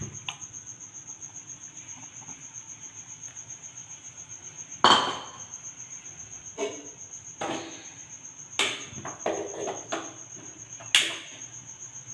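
A steady, high-pitched pulsing trill of a cricket, with a scattering of sharp knocks and clatters over it, the loudest about five seconds in and a quick cluster around nine seconds.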